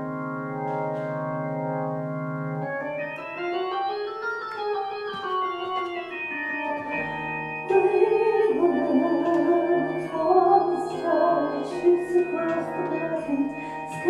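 Organ-led recorded music: a held chord, then a run of notes that climbs and falls. About eight seconds in it turns louder and fuller, with sharp beats over the organ.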